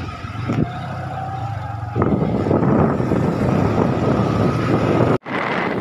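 Motorcycle engine running close by as it pulls up. About two seconds in the sound turns louder and rougher, then cuts off abruptly near the end.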